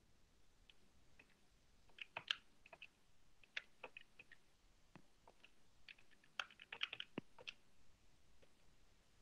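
Faint, irregular key tapping like typing, with a quick flurry of clicks about two seconds in and a longer one between six and seven and a half seconds.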